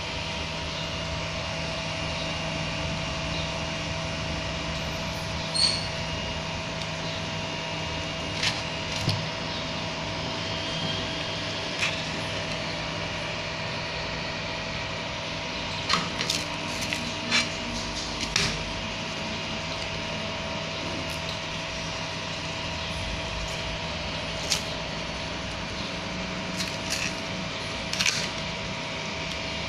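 Steady hum of a desktop 3D printer's cooling fans, with sharp clicks and taps of a printed plastic gear being handled on the printer's bed, a cluster of them around the middle.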